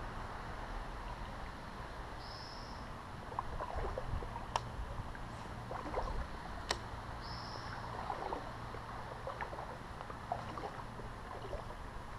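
Small boat drifting on a slow creek: steady low water-and-air background with soft splashes, knocks and clicks against the hull, two sharper clicks a few seconds apart mid-way. Two short high whistles, about two seconds in and again about seven seconds in.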